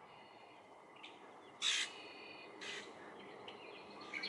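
Two short, harsh bird calls about a second apart, over fainter high chirping from other birds.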